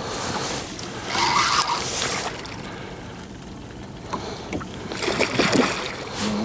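Lake water around a small boat, with splashing as a large hooked pike thrashes at the surface near the end.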